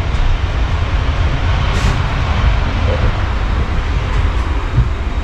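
Jet airliner noise: a loud, steady rush with a deep rumble underneath.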